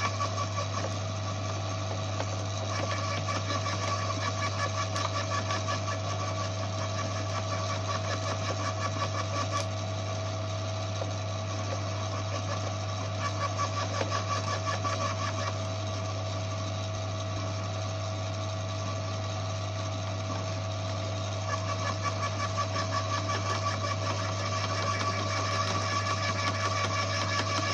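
Electric garden shredder running steadily with a constant motor hum, its cutter chewing branches with a fast, rattling crunch that grows louder in stretches as branches are pushed in.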